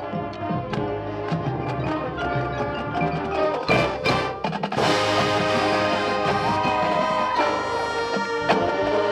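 High school marching band playing its field show: mallet percussion and drums under held brass chords, with two crashes about four seconds in, after which the band swells into louder sustained chords.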